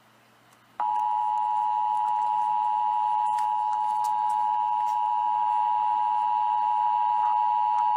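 Emergency Alert System attention signal: a steady two-tone alarm hum that starts abruptly about a second in and holds without change.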